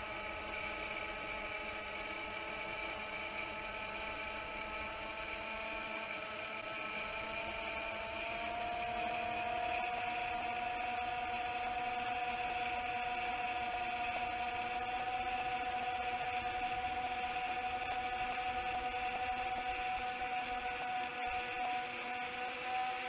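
Chimera 7 long-range FPV quadcopter's motors and propellers whining steadily under climbing throttle, in a single held tone with overtones; the pitch rises a little and the sound gets slightly louder about eight seconds in.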